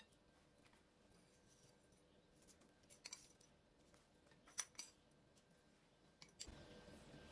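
Near silence broken by a few faint light clicks of a metal spoon against the plate and eggs as crispy fried shallots are spooned over them. The clicks come in small clusters, the sharpest a little past halfway.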